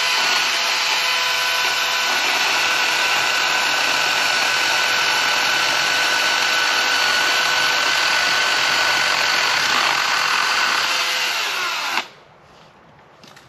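Husqvarna Power Axe 350i battery chainsaw running flat out as it saws into a tree trunk, a loud, steady whine. It winds down and stops near the end when the trigger is released.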